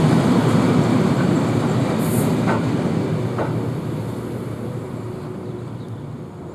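Wagons of a heavy roadstone freight train rolling past, a steady rumble of steel wheels on rail with a couple of clicks over rail joints. The rumble fades over the last few seconds as the train draws away.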